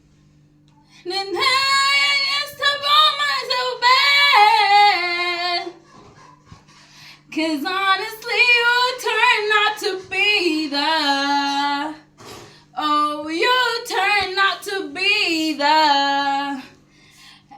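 A woman singing, largely unaccompanied, in several phrases with short pauses between them, full of sliding pitch runs and vibrato. A faint steady hum runs underneath.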